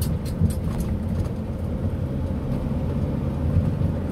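Car heard from inside its cabin while driving: a steady low rumble of engine and road noise.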